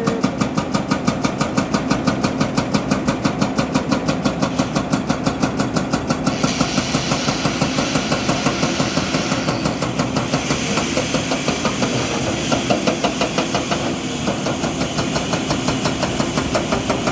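Diesel engine running at a steady low speed with an even, rapid chugging beat, about six pulses a second. A hiss joins it about six seconds in.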